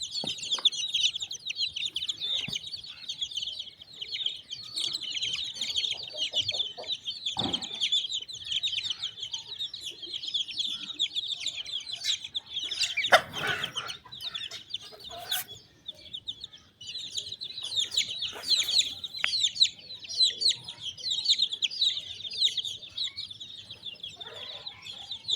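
A brood of chicks peeping continuously in a dense, high-pitched chorus, with a hen clucking now and then. The peeping drops off for a moment past the middle, and a louder short rustle or knock comes about 13 seconds in.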